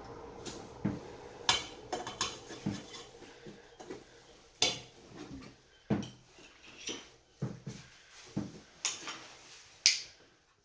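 A spoon clinking and scraping against a small glass bowl as softened butter is scraped out into a stand mixer's steel bowl: irregular sharp clinks and knocks, roughly one a second, some louder than others.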